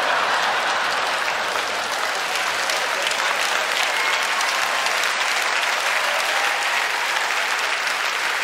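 Theatre audience applauding steadily, an applause break after a stand-up comedy punchline.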